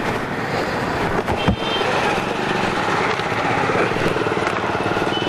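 Motorcycle engine idling steadily under street traffic noise, with a single low knock about a second and a half in.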